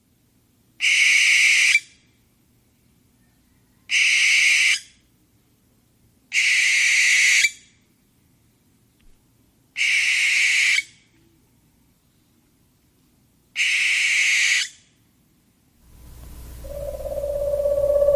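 Owl screeching: five harsh, hissy screeches of about a second each, a few seconds apart. Near the end a different sound with a steady held tone swells up.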